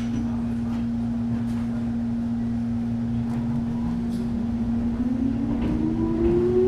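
Inside a Jōmō Electric Railway 700 series (ex-Keio 3000) resistance-controlled electric train pulling away from a station: a steady hum throughout, with the traction motor whine rising in pitch from about five seconds in as the train gathers speed.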